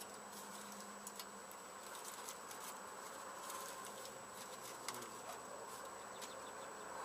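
Aluminium foil crinkling and crackling in the hands as it is bent and squeezed into a drain chute, in many small, irregular crackles.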